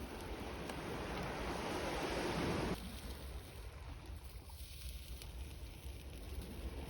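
Sea waves washing ashore, with wind on the microphone. The surf builds over the first few seconds, drops off suddenly, then swells again near the end.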